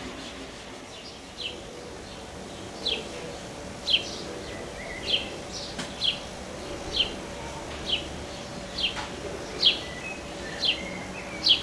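A bird repeating a short, high, falling chirp about once a second, starting about a second and a half in and growing louder. A faint steady hum runs underneath.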